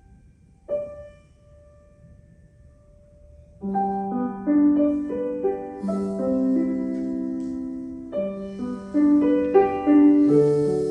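Piano playing: a single note struck about a second in and left to ring, then from about four seconds in a run of notes and chords.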